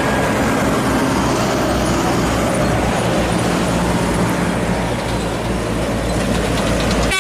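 Mercedes-Benz intercity coach coming along the road: steady diesel engine drone and tyre noise with traffic, loud and unchanging.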